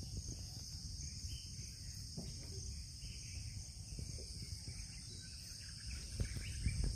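Steady, high-pitched insect chorus over a constant low rumble that grows louder near the end.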